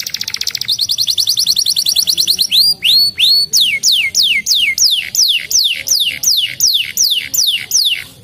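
Domestic canary singing: a fast, high trill of rapidly repeated notes, then a few rising notes, then a run of descending whistled notes about three a second. The song stops abruptly near the end.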